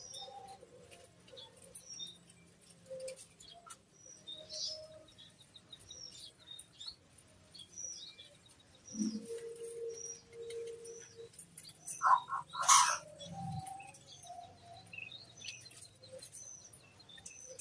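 Zebra doves (perkutut) calling, the 'kerot koar' call. Short high chirps repeat throughout, a lower held call comes about nine seconds in, and a louder call about twelve seconds in.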